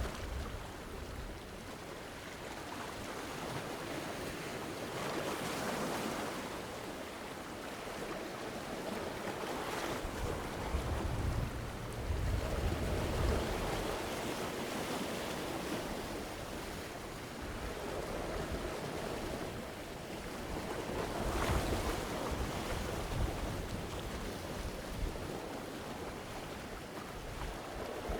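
Medium ocean waves breaking against rocks, a continuous wash of surf that swells and falls back every few seconds, with low rumbling under each break.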